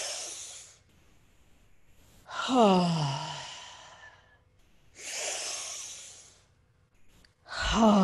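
A woman doing forceful open-mouthed breathwork: an audible exhale that falls in pitch as a voiced sigh, a long breath without voice, then another falling voiced sigh starting near the end.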